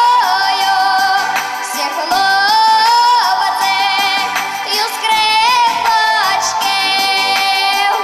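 A young girl singing a folk song in the academic folk-vocal style into a microphone. She holds long, high notes, sliding up into each one.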